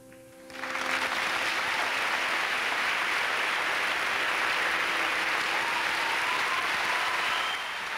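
Theatre audience applauding, coming up about half a second in and staying steady.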